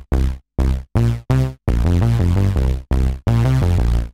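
Modal Electronics Cobalt 8X virtual-analogue synthesizer playing a factory preset dry, with no added effects. It plays a bright sound with a strong bass: four short detached notes in the first second and a half, then longer held notes with only brief breaks.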